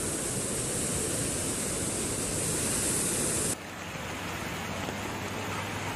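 Fast, muddy floodwater rushing in a torrent: a steady, loud roar of water. About three and a half seconds in it cuts off suddenly to a quieter, steady background noise.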